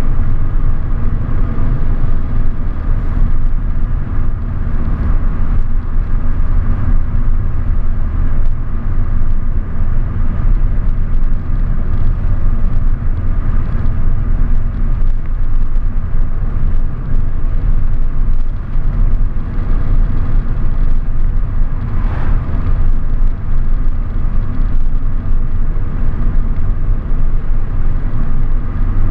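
A car driving, its engine and tyre noise a steady low rumble, with one brief sharper noise about three-quarters of the way through.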